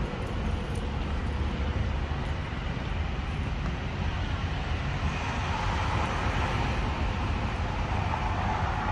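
Steady road noise of traffic passing on a highway, a continuous rushing hiss over a low rumble, swelling slightly about halfway through.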